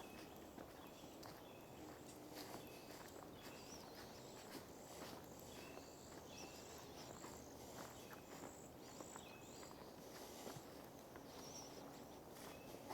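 Quiet outdoor ambience: faint footsteps on a sandy trail, with short high chirps repeating throughout.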